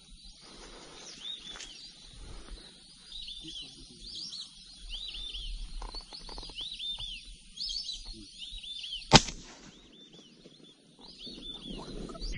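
A flock of whistling ducks calling in flight: repeated high whistles, each a quick run of two or three arching notes. One sharp crack sounds about nine seconds in.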